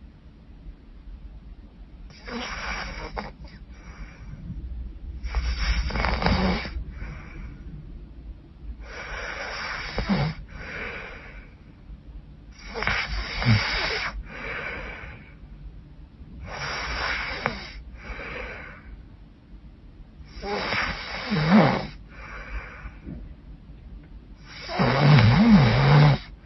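A woman snoring heavily: seven loud snores about every four seconds, each followed by a fainter breath. The last snore is the loudest.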